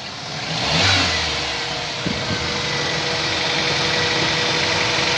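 1998 Toyota Indus Corolla engine starting, briefly rising in speed about a second in, then settling into a steady idle. Its PCV vacuum pipe is blocked with a thumb, and the odd noise the engine had been making is gone.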